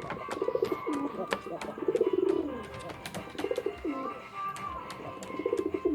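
Racing pigeon cooing: four low throbbing coos, each under a second, about a second and a half to two seconds apart.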